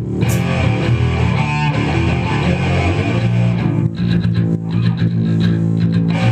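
Rock band jamming live, with electric guitar and bass guitar playing steadily.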